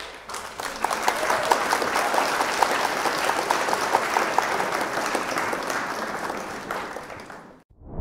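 A roomful of people applauding, clapping steadily for several seconds, then tapering off near the end before cutting off abruptly.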